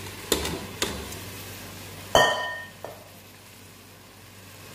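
Rice being tipped from a metal pot into a cooking pot of hot sauce, with sizzling beneath. Two light knocks in the first second, then one loud ringing metal clang about two seconds in as the pots strike each other, followed by a small knock.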